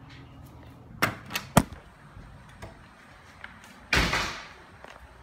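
Exterior door being opened: three sharp clicks of the latch and handle about a second in, then a short rushing sound near four seconds as the door swings open.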